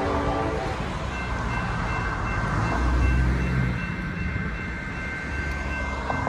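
Low rumble of an unseen diesel freight train on the line, swelling about three seconds in, with steady high-pitched tones held above it.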